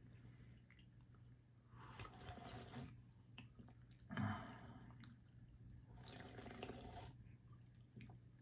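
Carbonated lime sparkling water being sipped from a can: three short, quiet fizzy sips about two seconds apart, over a steady low hum.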